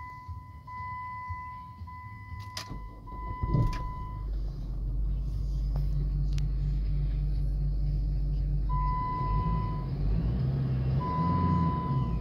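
Dodge Nitro's engine starting about three seconds in, with a surge as it catches, then idling steadily. A warning chime sounds in repeated tones before the start and twice more near the end.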